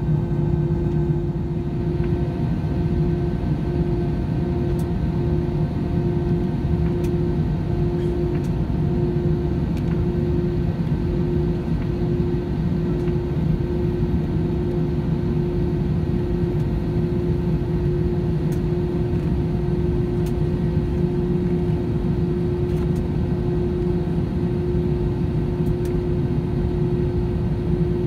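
Steady drone of an Airbus A320-200's jet engines heard inside the passenger cabin, a constant low hum with a steady tone above it and no change in power.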